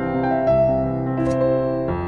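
Soft background piano music playing slow, sustained notes and chords.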